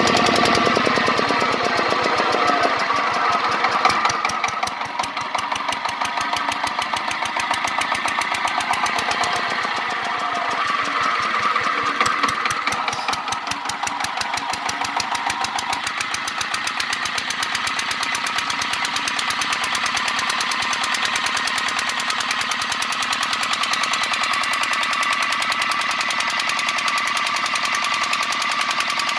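Vehicle engine running with a rapid, even knocking. This is the abnormal engine noise being shown as a fault. A higher whine shifts in pitch twice, early and again in the middle.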